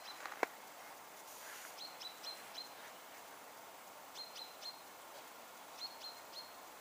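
A small bird calling in three short runs of three or four quick high chirps, over a steady faint background hiss. A single sharp click sounds just under half a second in.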